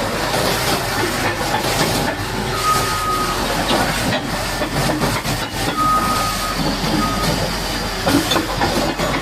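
High-pressure water jet hissing and splashing as it blasts caked mud off a Caterpillar D8T bulldozer. A short, steady, high-pitched tone sounds three times over it.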